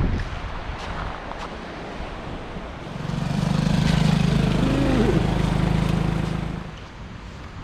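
A motor vehicle's engine passing close by: a steady low hum swells about three seconds in, holds for around four seconds and then fades, over wind noise on the microphone.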